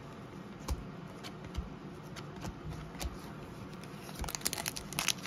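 Chrome trading cards handled by gloved hands: scattered light clicks and taps as cards are flipped and set down, getting busier near the end.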